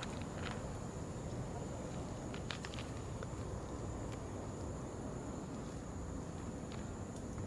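Steady outdoor background noise: a low rumble with a thin, steady high whine over it and a few faint scattered clicks.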